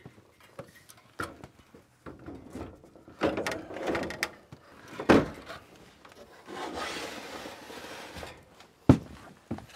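Evaporator coil being slid back into an air handler's sheet-metal cabinet: scraping and rubbing with scattered knocks, the loudest about five seconds in and another near nine seconds.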